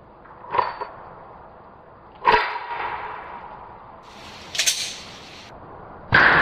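Handgun shots under a range roof: a sharp report about half a second in and a louder one with a lingering echo about two seconds later, then a shorter, higher-pitched crack near four and a half seconds. A loud steady noise cuts in just before the end.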